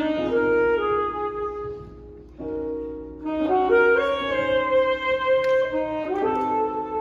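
Jazz band playing live, with a saxophone out front and the band behind it holding long sustained chords. The music thins out briefly about two seconds in, then comes back in fuller and louder.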